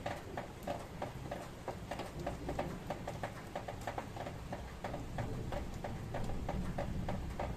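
Rain drips ticking one by one onto a hard surface close by, a few drops a second and unevenly spaced, over a low steady rumble.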